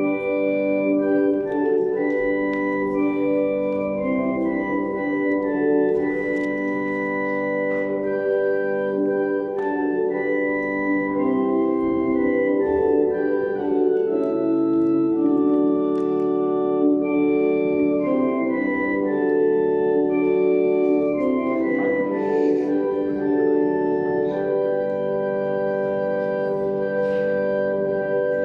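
Organ playing a slow hymn-like piece in sustained chords, the notes moving stepwise from chord to chord, as music during the church collection.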